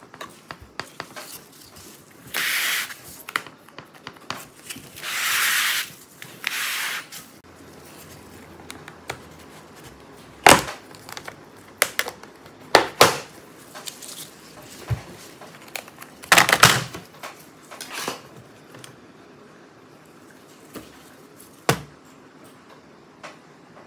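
Plastic opening pick scraping along the seam of a Lenovo Legion 9i laptop's bottom cover, followed by several sharp snaps as the cover's clips release one by one.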